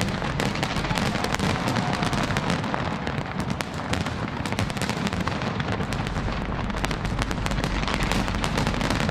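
Fireworks display going off in a dense, continuous barrage: rapid crackling and popping mixed with bangs, many per second.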